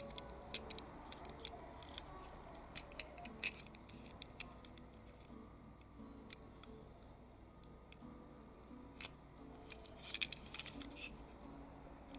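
Small, irregular clicks and taps of fingers handling an RMZ City die-cast Lamborghini Murciélago pullback model car, metal body and plastic wheels and base knocking lightly under the fingertips, with a quick run of clicks about ten seconds in.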